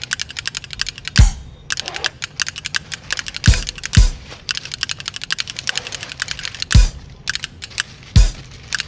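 Fast, even clicking like typing on a keyboard, with a deep thump every second or two.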